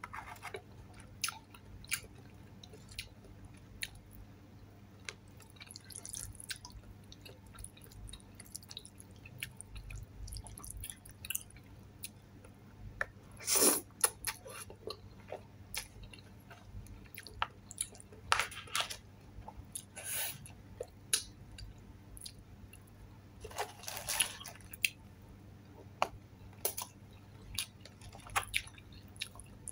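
Close-up eating sounds: long palabok rice noodles slurped off a fork and chewed, with many small wet mouth clicks. The loudest slurp comes about halfway through, another long one near the three-quarter mark.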